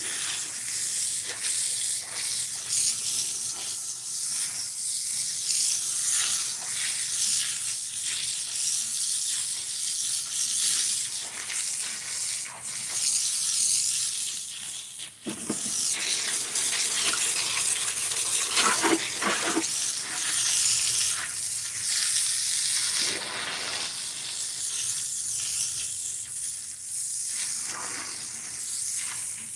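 Thin jet of water from a hose's trigger spray nozzle hissing and splattering on a concrete sidewalk, washing off grass clippings. The sound shifts in strength as the jet is moved.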